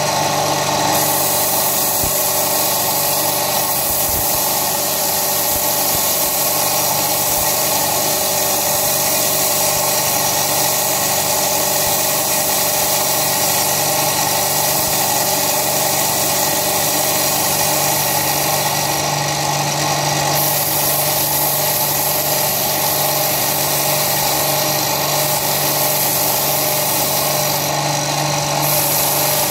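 Small benchtop belt-and-disc sander running steadily with a 120-grit belt, its motor hum and belt hiss mixed with the rasp of a steel knife edge being ground on the belt to raise a burr. The hiss briefly gets brighter twice, about two-thirds in and near the end.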